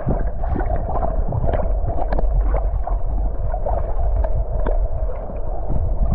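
Stream water heard through a submerged action camera: a muffled, low rushing and gurgling of the current with the treble cut off, dotted with faint small ticks.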